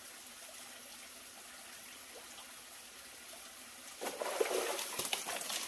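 Small stream trickling quietly, then from about four seconds in, loud splashing at the surface as a hooked freshwater eel thrashes on a handline.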